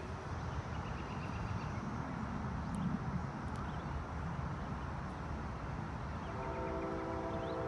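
Steady low outdoor rumble, then about six seconds in a locomotive's multi-chime air horn starts sounding: a chord of several steady tones held on.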